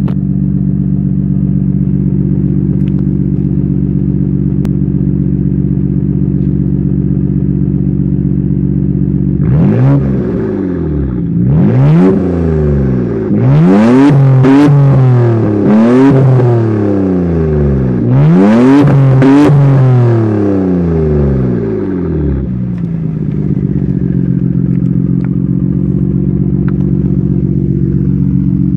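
Straight-piped 1989 Nissan Skyline GT-R R32 exhaust from its twin-turbo RB26 straight-six, heard at the tailpipe. It idles steadily, is revved in a string of about seven quick throttle blips from about a third of the way in, each rising and falling in pitch, then settles back to idle.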